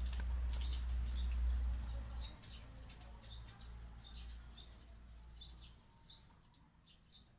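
Small bird chirping in quick short notes, over a low rumble that fades out about two seconds in.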